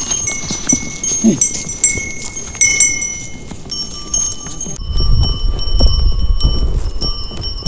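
Small bells tinkling irregularly while horses walk by. A low rumble comes in about five seconds in.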